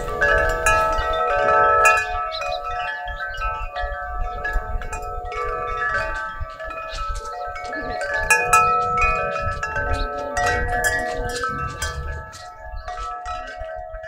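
Metal tube wind chime ringing as it sways, its tubes struck again and again into overlapping, lingering clear tones, with a low rumble underneath.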